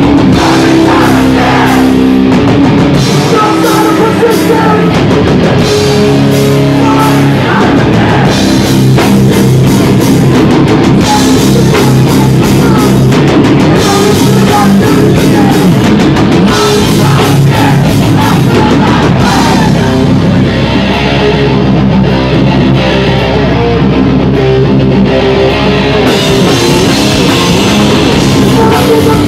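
Hardcore band playing live at full volume: distorted electric guitars, bass and drum kit, close to the stage and loud. The top end thins out for several seconds about twenty seconds in.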